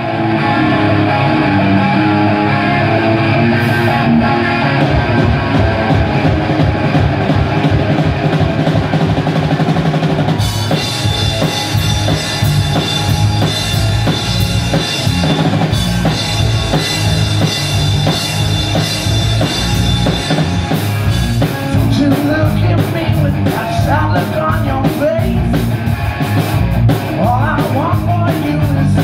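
Rock band playing amplified electric guitar, bass guitar and drum kit. The sound gets fuller and brighter about ten seconds in, and the drum hits stand out more from about two-thirds of the way through.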